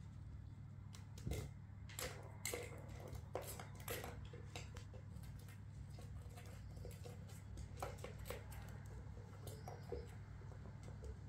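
Light, irregular plastic clicks and knocks as kittens bat balls around a plastic tower-of-tracks cat toy, over a low steady hum.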